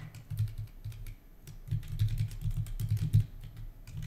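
Typing on a computer keyboard: a run of key clicks at an uneven pace.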